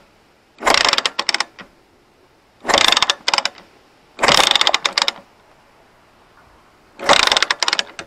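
Zontes Tiger 125cc single-cylinder four-stroke engine being cranked over in four short tries of about a second each, without firing: it has a spark but still won't start.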